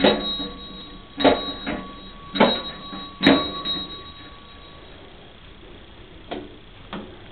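A fire engine bell struck four times at uneven intervals, each strike leaving a clear ringing tone that hangs on and fades after the last one. Two lighter knocks follow near the end.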